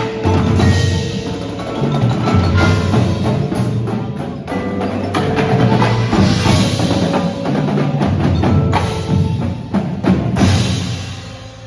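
Percussive music: many sharp hits over low held tones and bass, dropping in level near the end.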